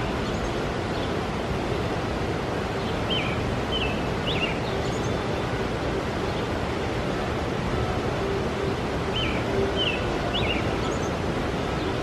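Steady rushing of water from a river rapids ride, with a bird singing a short phrase of a few high chirps, repeated every five or six seconds.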